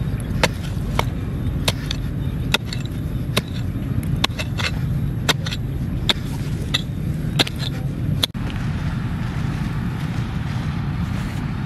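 Small pick-mattock striking into dry, stony soil, about a dozen sharp chops roughly every two-thirds of a second, over a steady low rumble. After about eight seconds the chopping stops and gives way to a softer scraping of loose soil by hand.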